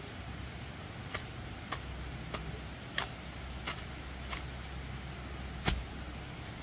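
A series of sharp, short knocks or taps, about one every half to two-thirds of a second with a louder one near the end, over a low steady hum.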